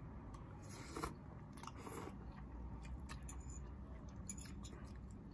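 Two people slurping and chewing instant noodles, with short slurps about one and two seconds in and small wet mouth clicks between.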